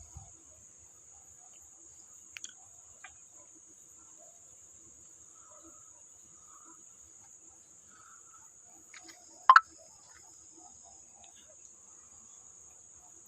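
Crickets trilling steadily in the background, with faint scattered clicks and one sharp double snap about nine and a half seconds in.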